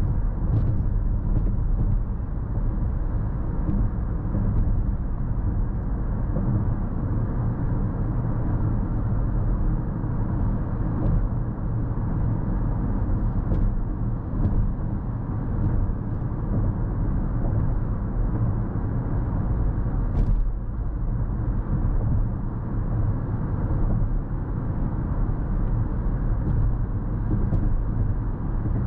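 A 2022 Lexus NX 350 cruising at highway speed, heard as steady low road and tyre rumble from inside the cabin. A few faint ticks and a brief knock about twenty seconds in, as from a bump in the road.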